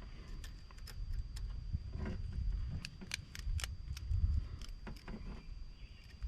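Stainless wire rigging cable and a swage ferrule being handled as the cable is fed through and pulled in: scattered light metallic clicks and ticks, a cluster about three seconds in, over low handling rumble.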